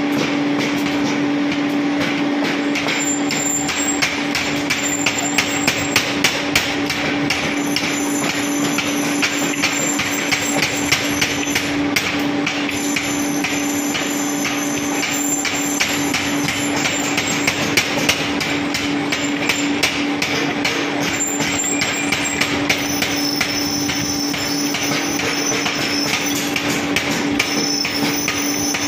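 Belt-driven mechanical power hammer forging red-hot steel: rapid, regular hammer blows on the workpiece over a steady machine hum.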